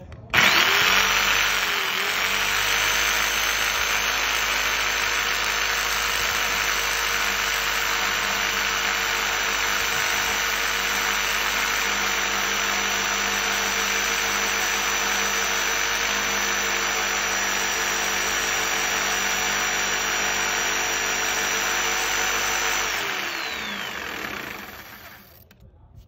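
Jigsaw starting up and cutting steadily into the edge of a wooden door, following the marked line for a lock hole. The motor dips briefly just after starting, runs evenly for about twenty seconds, then winds down near the end.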